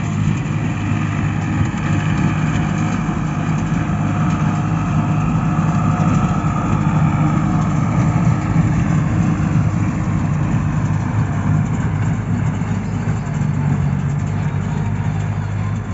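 New Holland tractor's diesel engine running steadily, driving a CLAAS Markant 55 small square baler.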